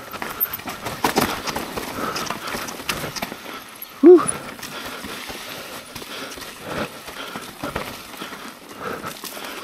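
Mountain bike clattering along a rough dirt trail: irregular knocks and rattles from the chain, frame and tyres over bumps. About four seconds in comes one brief, loud pitched sound that rises and then falls.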